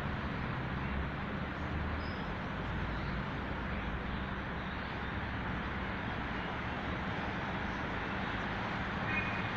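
Steady street traffic noise with a low, continuous engine hum. A brief faint high note sounds near the end.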